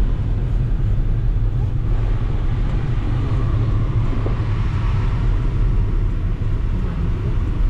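Inside the cabin of a moving car: a steady low rumble of engine and road noise while driving.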